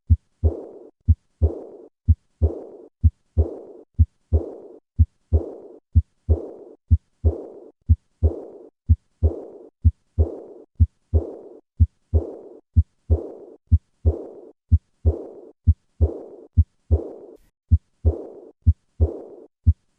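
Heart sounds with the murmur of aortic regurgitation, about one beat a second. Each beat is a pair of short low thumps, the first and second heart sounds. After the second comes a high-pitched, decrescendo diastolic murmur that fades before the next beat.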